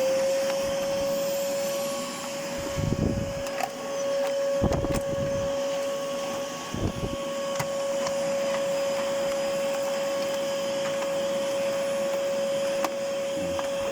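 Hoover vacuum cleaner running at full speed, a steady high motor whine over a rushing of air. Three brief low rumbles and a few sharp clicks break in during the first half.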